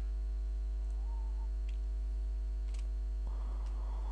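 Steady electrical mains hum on the recording, with a few faint clicks of computer keyboard or mouse use.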